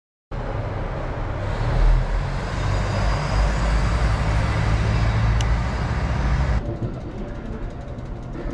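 Wind buffeting the microphone of a camera riding on a moving bicycle: a rough, unsteady rumble under a wide hiss. It starts abruptly and drops to a quieter, more even rush about six and a half seconds in.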